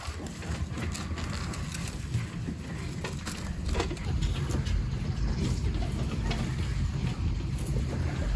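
Wind rumbling on the microphone, getting stronger toward the end, with a few light clicks of chain-link fence wire being handled at a concrete post.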